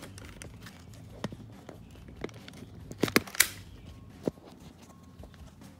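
Handling noise as a camera is moved in close over a car's trunk lid: scattered sharp clicks and knocks, with a loud cluster of three about three seconds in and a single knock shortly after.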